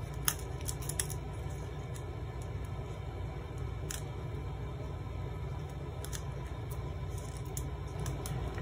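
A few small, sharp clicks from a phone's plastic parts and small tools being handled while the battery is refitted, over a steady low hum.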